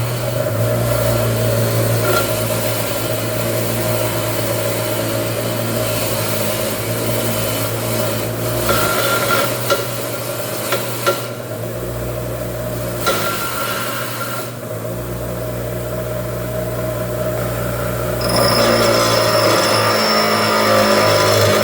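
A power tool running with a steady hum and rubbing, scraping noise, with a few short knocks partway through; it gets louder about eighteen seconds in.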